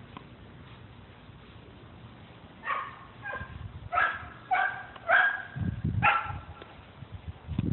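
A small dog yipping during play, about six short high barks in quick succession, starting about three seconds in.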